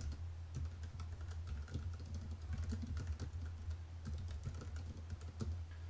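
Typing on a computer keyboard: quick, irregular keystrokes as a line of code is entered, over a low steady hum.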